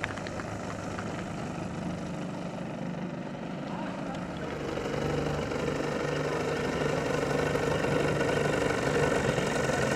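3W 170cc two-stroke twin petrol engine of a large RC Sukhoi Su-29 aerobatic plane running at idle as the plane rolls out and taxis toward the listener. It grows steadily louder from about halfway through.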